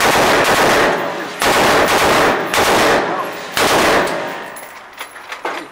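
MG 08/15 machine gun, firing 7.92 mm rounds from a cloth belt, shooting several loud bursts in quick succession with short breaks between them. The fire stops about four seconds in and the hall's echo trails off.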